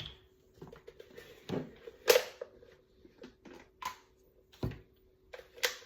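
Scattered knocks and clicks of dishes and utensils being handled, the loudest about two seconds in, over a faint steady hum.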